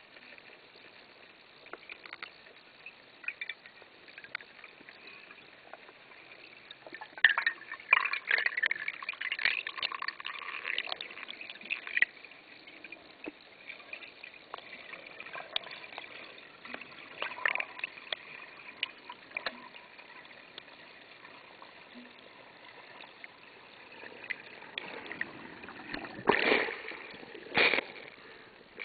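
Muffled underwater noise through a camera housing, with scattered clicks and crackles that are busiest about a quarter to a third of the way in. Near the end come two loud, short splashes of water as the camera breaks the surface.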